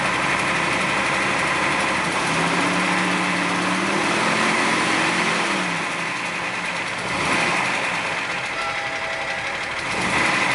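2003 Jeep Wrangler TJ's 4.0-litre straight-six idling steadily with a knock and a click. The owner suspects a broken piston skirt or a bad piston rather than a crank bearing.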